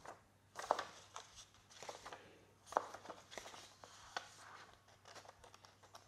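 Pages of a paper instruction booklet being turned by hand: a series of faint rustles and sharp paper flicks.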